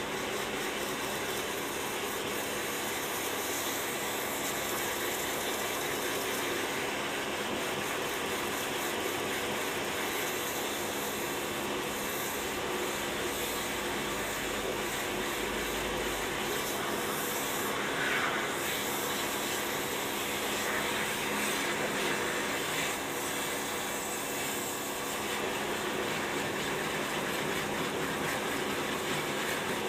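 Pressure washer running steadily: the pump hums while the water jet sprays against the car's lower bodywork and the gravel.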